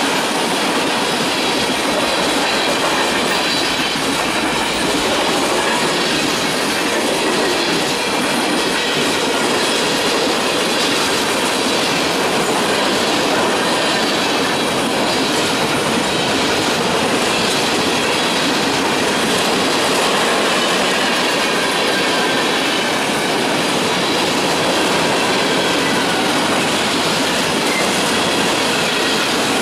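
Freight cars of a passing freight train, tank cars, boxcars and covered hoppers, rolling by at track speed. Steel wheels clatter over the rail joints in a loud, steady, unbroken rumble.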